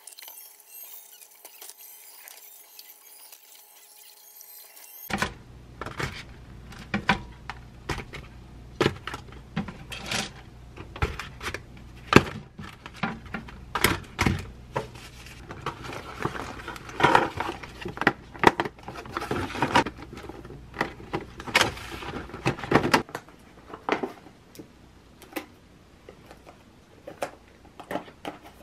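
A kitchen tap runs faintly into a sink for the first few seconds. Then comes the handling of kraft paper bread boxes and clear plastic lids while bread rolls are packed: many sharp crinkles, taps and scrapes of paper and plastic, thinning out after about twenty-three seconds.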